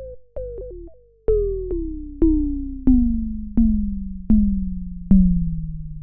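Synthesizer music: a run of about ten struck notes, each sliding down in pitch as it fades and each starting lower than the last, so the whole sequence sinks steadily.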